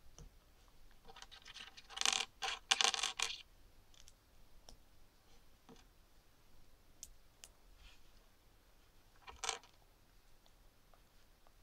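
Small plastic LEGO pieces handled and fitted together in the hands: a cluster of scratchy clicks and rattles about two seconds in, one short burst later on, and faint fiddling ticks between.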